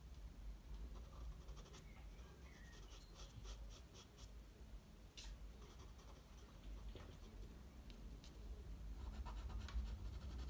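Faint scratching of a Faber-Castell Pitt pastel pencil on pastel paper, in short, light hatching strokes, over a low room hum.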